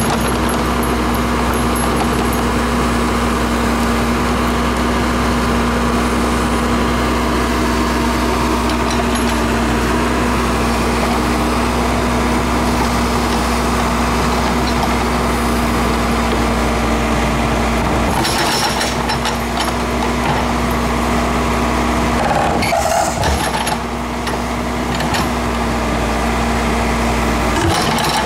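Case 580L Turbo backhoe's turbocharged diesel engine running steadily under digging work, with a few short knocks and rattles in the latter part.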